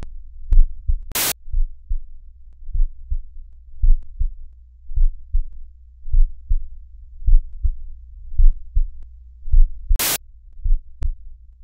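Deep bass thumps in pairs about once a second, like a heartbeat, over a steady low hum: a soundtrack beat. Two short bursts of static hiss cut across it, about a second in and again near the end.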